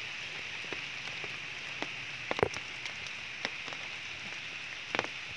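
Steady rain falling, with scattered drips and a few sharp clicks, the loudest about two and a half seconds in and again near the end.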